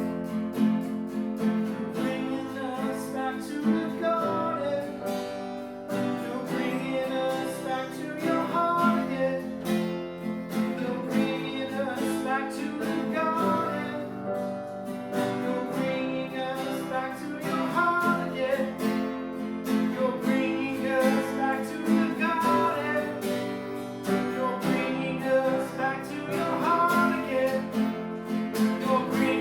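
A worship song played on strummed acoustic guitar, with a voice singing the melody.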